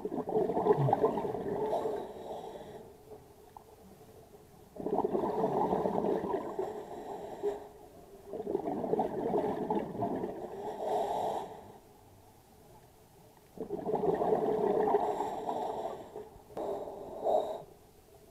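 A scuba diver's exhaled breath bubbling out of the regulator underwater, in rushes of two to three seconds about every four seconds with quiet pauses between, and a short one near the end.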